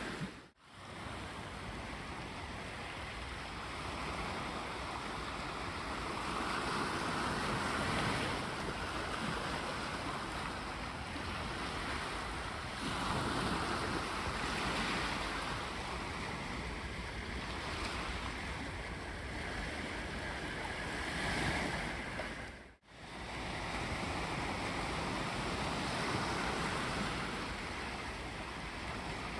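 Sea waves washing onto a beach: a steady rush of surf that swells and eases every few seconds, with wind on the microphone. The sound drops out abruptly twice, once just after the start and once near the end.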